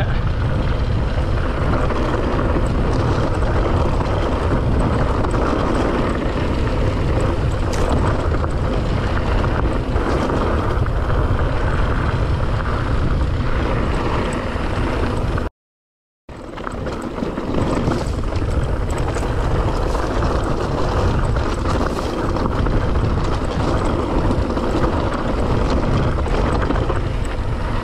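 Mountain bike rolling fast down a rocky dirt singletrack: wind rumbling over the camera microphone, tyres crunching on dirt and gravel, and the bike rattling and knocking over rocks. The sound cuts out completely for under a second about halfway through.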